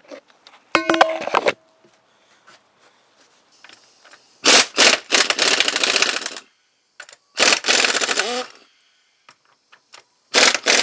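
Air impact wrench hammering out the three bolts that hold the main pump-and-motor assembly of a Hydro Gear hydrostatic transmission: a short blip about a second in, then three longer rattling bursts of one to two seconds each, with a wavering whine as the tool spins down after a burst.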